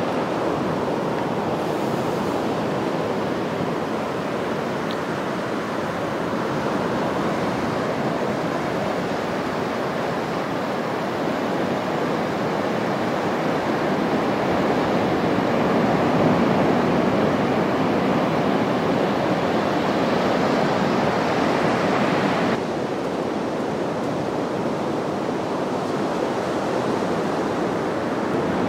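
Surf breaking on a sandy beach: a steady wash of waves. About three-quarters of the way in, the higher hiss drops off suddenly.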